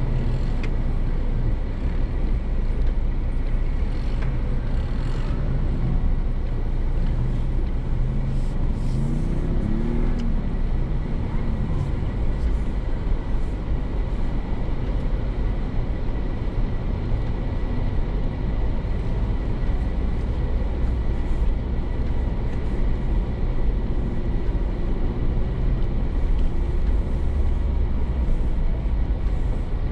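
Ford Bronco driving on an off-road trail: a steady, continuous low engine and drivetrain rumble.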